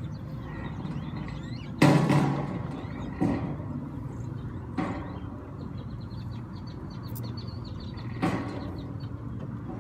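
A few sharp knocks and clatters, the loudest about two seconds in and three lighter ones after, over a steady low hum.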